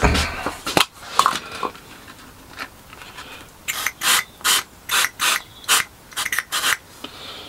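Superglue accelerator sprayed onto a glued wire mesh grille, in a run of about nine short puffs from about halfway through, after a few short clicks.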